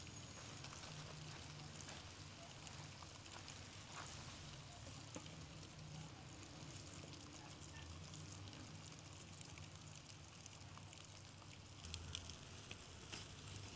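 Faint, steady crackle and hiss of wood embers in an open fire pit, with scattered small ticks and a few slightly louder ones near the end.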